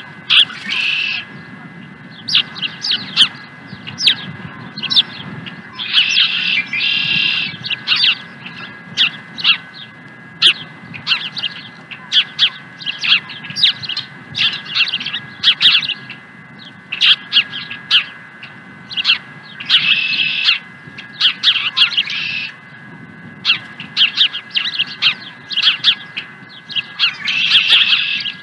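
Ospreys calling from the nest: a rapid, insistent series of sharp, high whistled chirps, two or three a second. The chirps are broken several times by longer, harsher calls of about a second each: at the start, a few seconds in, about two-thirds of the way through and again near the end.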